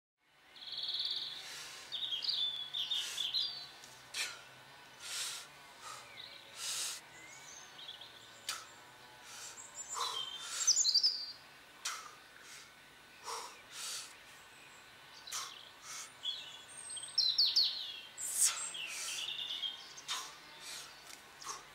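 Birds singing and chirping in short twittering phrases scattered through, with brief rushing noises every second or two.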